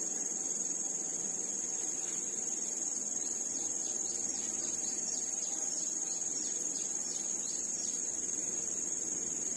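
Steady, high-pitched insect chorus of crickets or similar insects trilling, with a run of fainter quick chirps from about four to eight seconds in.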